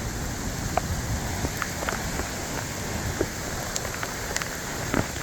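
Steady heavy rain, with scattered single drops ticking sharply close by.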